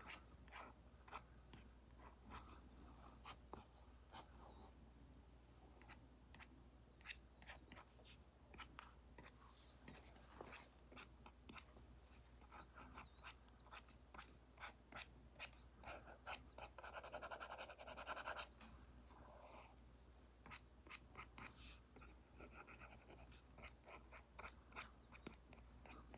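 Apple Pencil Pro tip tapping and stroking on an iPad screen fitted with a paper-like screen protector: many light taps, with a longer scratchy stroke about 16 seconds in.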